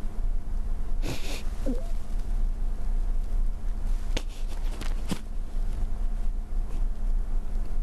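A woman holding back tears: a sharp sniff about a second in, a brief falling catch in her voice, then two small clicks, over a steady low hum.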